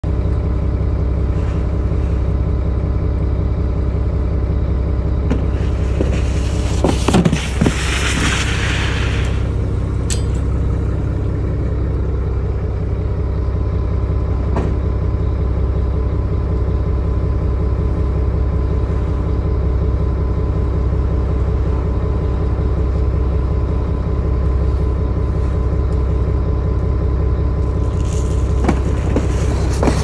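Idling engine humming steadily throughout. About six seconds in, a plastic bait crate slides down a wooden chute with a rough scraping rush lasting about three seconds, broken by a few knocks.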